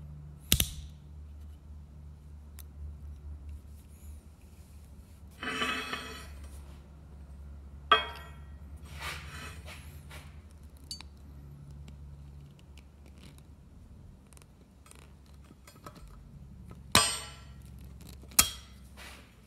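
Scattered sharp metallic clicks and clinks of a steel snap ring and snap-ring pliers against the steel joint housing of a control arm as the ring is fitted, with a couple of the loudest clicks near the end. A faint low steady hum runs underneath.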